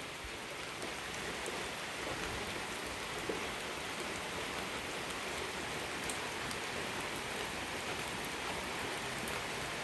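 A steady, even hiss with no pitch, and one faint tick a little over three seconds in.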